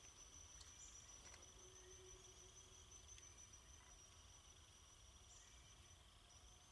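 Faint, steady high-pitched chirring of insects at dusk, with a few faint ticks.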